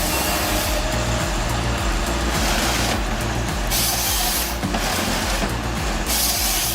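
Heavy vehicle engine running steadily, with four separate bursts of hissing air.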